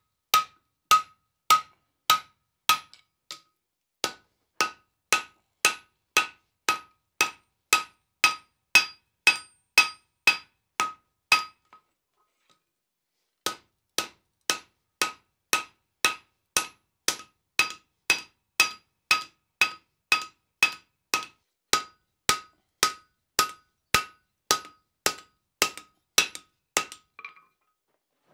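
Hand hammer striking hot 5160 steel on the anvil, a spike tomahawk head with a drift in its eye, at a steady pace of about two blows a second. Each blow gives a short ringing ping. The hammering pauses briefly near the middle, then resumes and stops just before the end.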